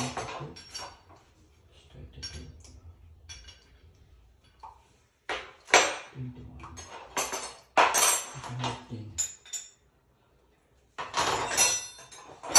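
Hard objects clinking and clattering off to the side in irregular bursts, the kind of noise made by handling tools and metal parts during plumbing work, with a few short low vocal sounds between them. It is quiet for about a second shortly before the last and longest clatter.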